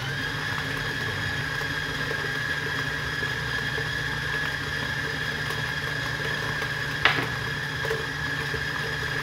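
Stand mixer motor running steadily at high speed, a constant whine, as its paddle creams butter and sugar. A single sharp click about seven seconds in.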